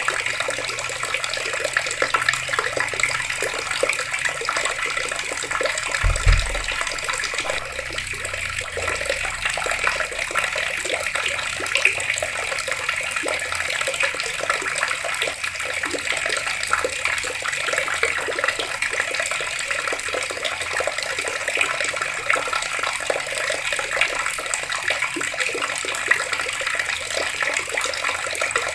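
Water running steadily from taps and splashing down. A single low thump about six seconds in.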